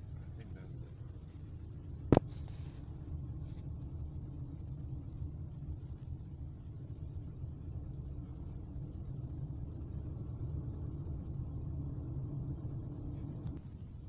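Steady low rumble of a car driving in traffic, heard from inside the cabin, with one sharp click about two seconds in.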